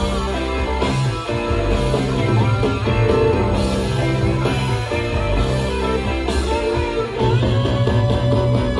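Live rock band playing a slow, heavy progressive-rock passage, electric guitar and bass guitar to the fore over a steady beat.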